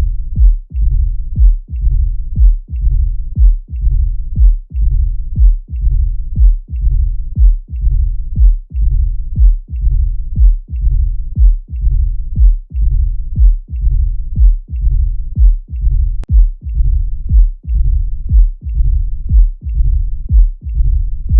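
Auscultated heart sounds of mitral stenosis beating evenly at about one beat a second. Each beat has sharp valve clicks followed by a low diastolic rumble, the sign of the narrowed mitral valve.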